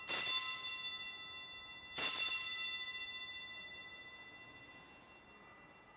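Altar bell struck twice, about two seconds apart, each strike ringing high and fading away slowly: the bell rung at the elevation of the chalice during the consecration at Mass.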